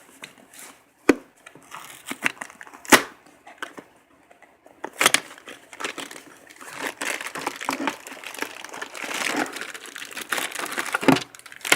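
Cardboard box being opened and its packaging handled: a few sharp snaps and clicks as the box is worked open, then a few seconds of continuous crinkling as the packaging inside is pulled out.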